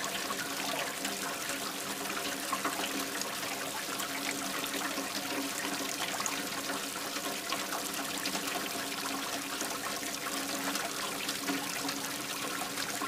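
Small waves on a reservoir lapping and trickling against the grassy bank: a steady, crackling water sound with a faint steady hum underneath.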